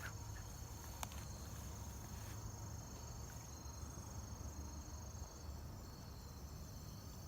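Steady high-pitched chorus of insects trilling without a break, over a low rumble, with one faint click about a second in.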